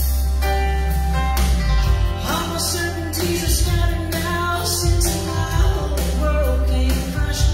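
Amplified gospel song: vocals over an instrumental accompaniment with a strong bass line, the voice coming in about a second and a half in.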